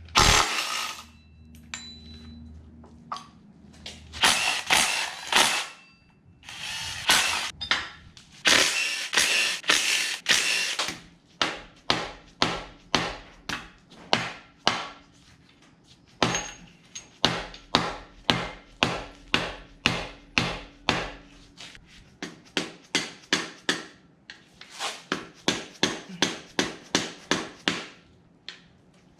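Hand wrench work on engine fasteners: a ratchet wrench worked in quick, repeated strokes, about two to three a second, in several runs separated by short pauses.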